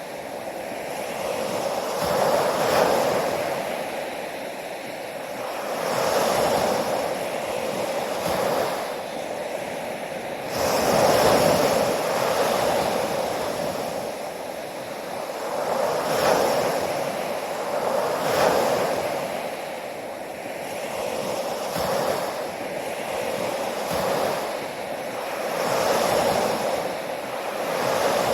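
Ocean waves breaking and washing on a shore, a continuous surf wash that swells every few seconds as each wave comes in.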